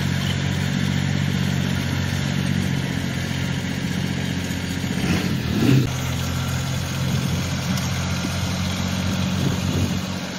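Compact tractor engine running steadily under load while it drives a rear-mounted rotary tiller through garden soil. A brief louder sound cuts in just past halfway.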